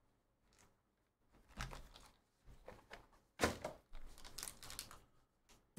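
A foil Leaf trading-card pack crinkling in the hands as it is taken from its box and handled, in short rustles, the loudest a little past halfway.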